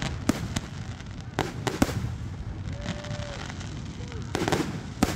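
Fireworks going off: a string of sharp bangs and cracks, about seven in all, the loudest just under two seconds in, over a steady low rumble.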